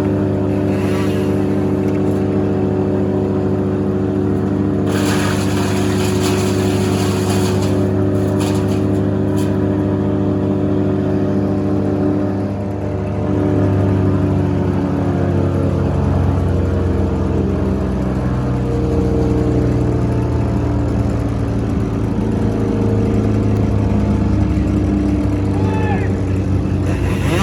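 Heavy equipment engine running steadily at a tree removal job. Its pitch shifts and its level dips briefly about halfway through.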